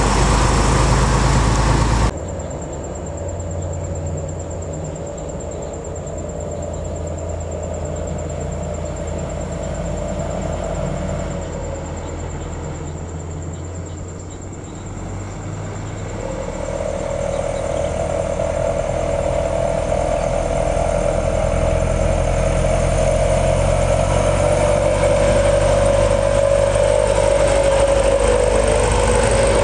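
Heavy truck passing close with loud engine and road noise, cut off abruptly about two seconds in. Then an Isuzu diesel truck is heard approaching, its engine hum and whine growing steadily louder from about halfway, and it passes close near the end, the whine dipping slightly in pitch.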